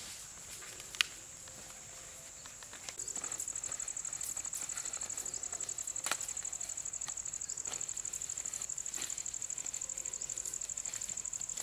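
High-pitched insect chorus, a steady trill that turns into a fast even pulsing and grows louder from about three seconds in. A sharp click sounds about a second in, and another near the middle, over soft rustling of banana leaves being folded by hand.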